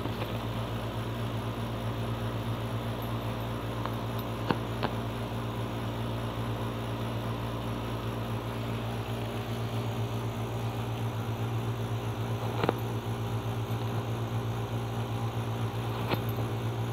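Steady low machine hum with an even hiss, like a running fan. A few short sharp clicks stand out over it, about four and a half seconds in, near thirteen seconds and near sixteen seconds, as a West Highland white terrier squirms and digs on its back in a padded dog bed.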